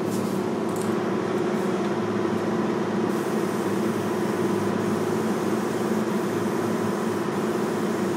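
Steady hum of a paint booth's ventilation fan, with several even tones and no change in speed. From about three seconds in, a faint high hiss comes in.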